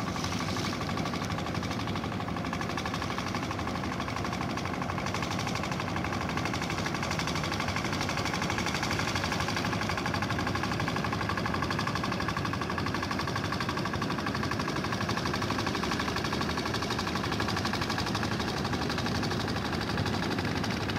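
Motorboat engine idling steadily, an even mechanical hum that does not change.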